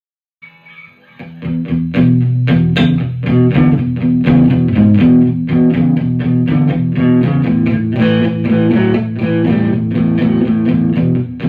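Harley Benton JA-60CC Jazzmaster-style electric guitar played in quick picked notes and chords. It starts faintly about half a second in and is at full level from about two seconds in.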